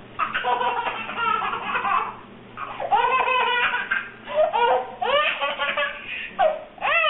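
A baby laughing in repeated high-pitched fits of giggles with short breaks between them.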